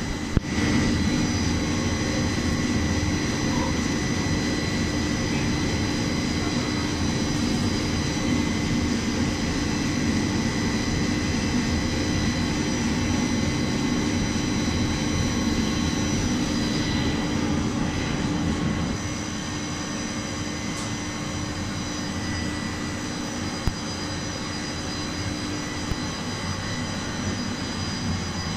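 Corn flakes production line machinery running: a steady drone of motors and fans with a low hum and several high steady whines. The level eases slightly about two-thirds of the way through.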